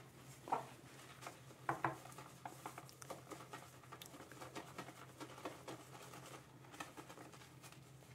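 Omega synthetic shaving brush whipping soap into lather in a stainless steel bowl: a faint, irregular wet patter of small ticks and swishes.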